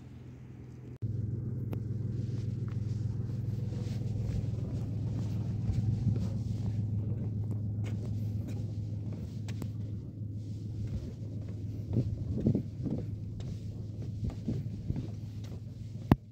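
A steady low rumble with scattered knocks of footsteps on wooden jetty boards, heavier for a moment about three-quarters of the way through, and a sharp click near the end.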